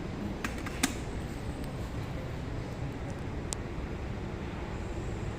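Fujitec passenger lift arriving at the landing and opening its doors: a steady low rumble with a quick cluster of sharp clicks just under a second in and one more click about midway.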